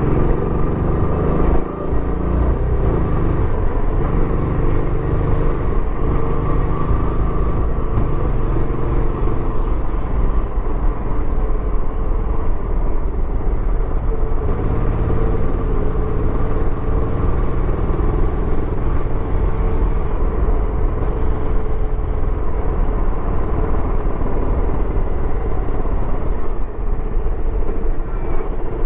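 Royal Enfield Bullet 350X's single-cylinder engine running on the stock exhaust while riding, a steady, loud, low exhaust note. It dips briefly in loudness under two seconds in.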